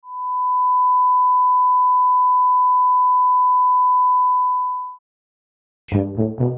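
A steady 1 kHz reference test tone, the tone that goes with color bars, held for about five seconds and then cutting off. After a short silence, music starts near the end.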